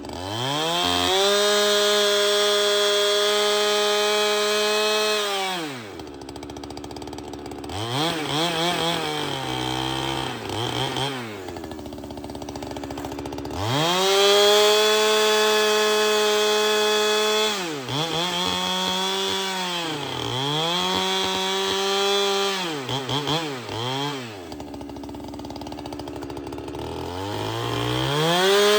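Holzfforma two-stroke chainsaw revving to full throttle and holding there for about four seconds, then dropping back to idle. It is blipped a few times, runs wide open again for about four seconds, is blipped repeatedly, idles, and revs up once more near the end.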